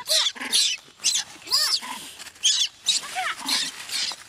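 Macaque screaming in short, shrill, repeated cries, about two a second.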